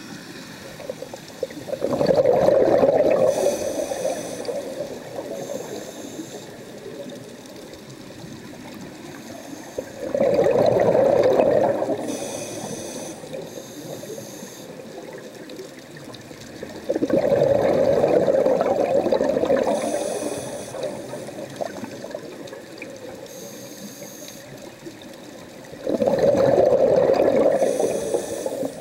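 Scuba regulator exhaust: the diver breathes out four times, roughly every eight seconds, each breath a burst of bubbling that rushes out for about two seconds and then fades, heard underwater.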